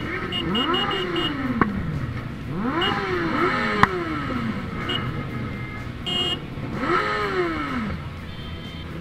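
Motorcycle engines in a slow-moving group revving up and falling back, several times, in overlapping rises and falls of pitch. Two sharp clicks are heard along the way.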